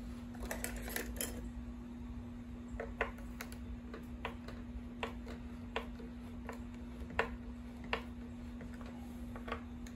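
Small metal clicks from a tool turning the height-adjustment studs of an electric guitar's wraparound bridge, lowering the bridge to set the string action. Scattered clicks and rustling at first, then single sharp clicks about every three quarters of a second, over a steady low hum.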